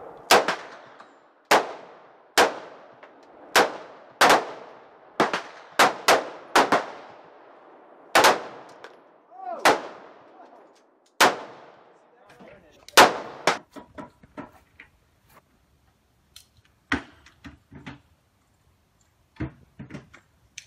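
Rifle shots at a shooting range: about fourteen sharp shots at irregular intervals, each trailing off in echo. They stop about two-thirds of the way through, and only fainter short pops and clicks follow.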